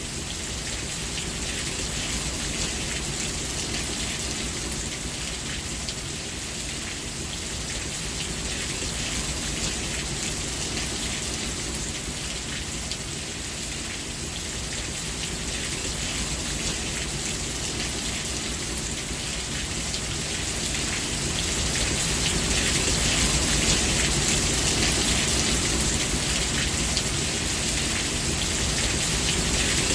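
Steady rain falling, a continuous dense patter of drops that grows a little heavier about two-thirds of the way through.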